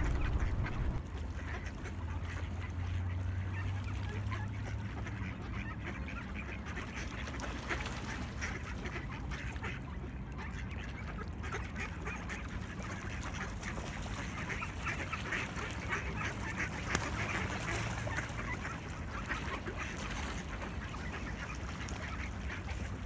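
A flock of mallard ducks calling, with many short overlapping quacks throughout, over a steady low rumble.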